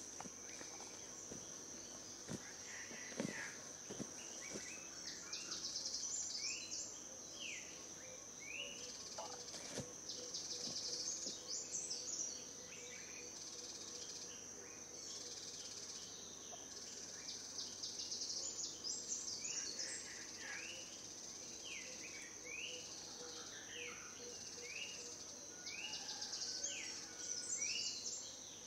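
Forest ambience: a steady high-pitched insect drone, with birds calling over it in bouts of short rising whistled notes and fast trills.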